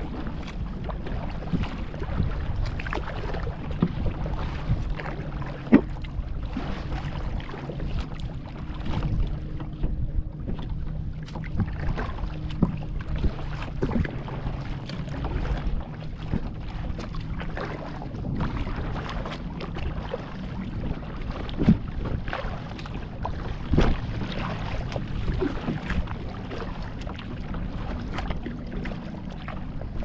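Water sloshing and splashing around a kayak, with scattered knocks and a few louder splashes, over a steady low rumble of wind on the microphone.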